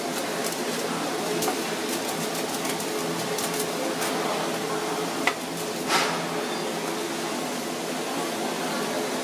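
Steady machine hum, with light crinkling and taps from plastic-gloved hands working a fish through starch on a foil-lined tray; two sharper knocks a little past halfway.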